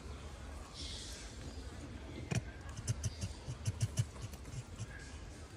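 A single sharp click, then a quick run of about eight soft knocks and clicks in just over a second, over a low steady rumble.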